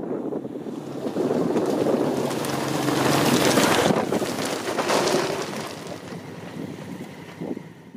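Two Honda CRF1000L Africa Twin motorcycles with parallel-twin engines riding past. The engine sound swells to its loudest about three to four seconds in, again about five seconds in, then fades away.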